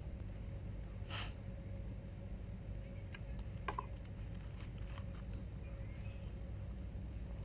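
A plastic bag rustling briefly about a second in, then a few light clicks and taps of utensils and the bag being handled at a dinner table, over a steady low rumble and a faint steady hum.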